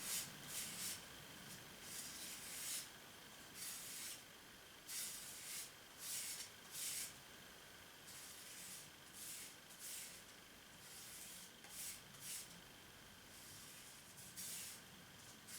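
Knife blade being stroked by hand across an abrasive sharpener with light pressure, a run of short scraping hisses in an uneven rhythm, several strokes every couple of seconds.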